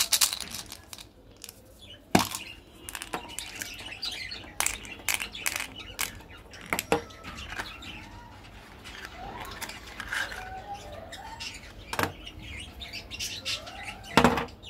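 Hands handling candy packaging, a plastic capsule and a cardboard box: irregular sharp clicks and rustles, the loudest about two seconds in and again near the end.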